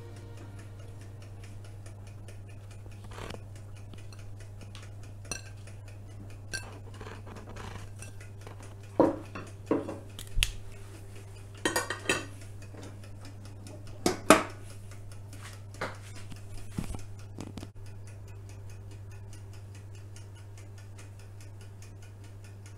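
Kitchen tongs and a plate clicking and knocking against an electric grill's wire rack, a scattered run of sharp clatters that is busiest between about nine and fifteen seconds in, over a steady low hum.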